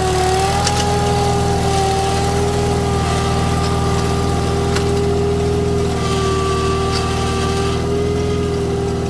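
Ingersoll 4118 garden tractor engine running steadily under load as the tractor pulls a ground ripper through sandy soil, with a steady whine over the engine note. The pitch dips slightly a couple of times, and the sound fades a little near the end as the tractor pulls away.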